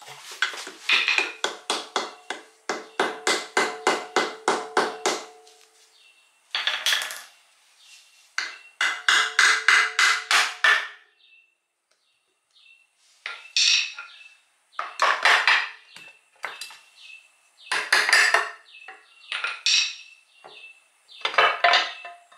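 Quick runs of light hammer taps, about four a second, on the stuck aluminium lower pan of a Honda Civic Hybrid CVT, each tap ringing. They are followed by irregular metallic knocks and scrapes as the pan is worked loose from the case.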